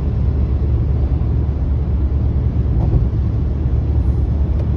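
Steady low rumble of a car driving on a highway, heard from inside the cabin: tyre and engine noise.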